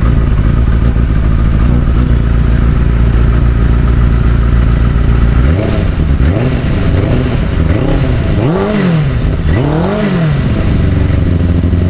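Benelli TNT 600i inline-four engine warming up: a steady idle, then from about halfway several throttle blips whose pitch rises and falls, the last two the highest, before it drops back to idle.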